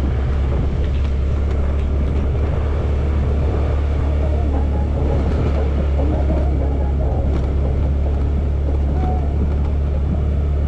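Honda Activa scooter's single-cylinder engine running steadily while the scooter is ridden, under a strong constant low rumble.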